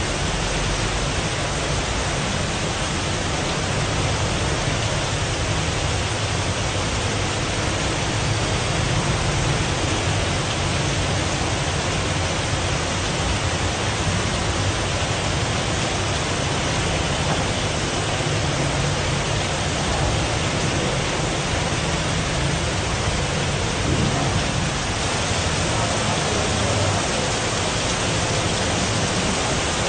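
Heavy rain pouring steadily: a dense, even hiss with a low rumble underneath.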